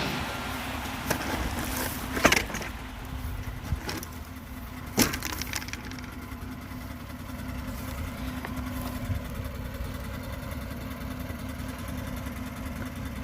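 An engine running steadily at idle, with a few sharp knocks about two and five seconds in.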